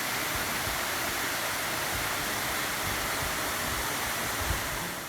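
Waterfall rushing, a steady, even roar of falling water that fades out near the end.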